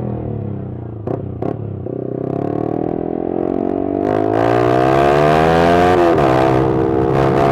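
Motorcycle engine running through a Pro Liner muffler with the dB killer removed. It slows at first, with two short clicks, then revs up steadily, dips briefly once near the end, and holds its pitch.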